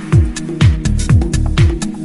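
Upbeat background music with a steady kick drum about twice a second, a held bass line and ticking hi-hats.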